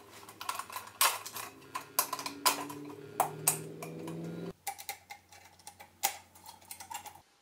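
Irregular sharp clicks and light taps as the Triumph Speed Triple's round headlight is handled and seated on its mounting bracket. Faint steady low tones sit underneath for the first four seconds or so, then stop.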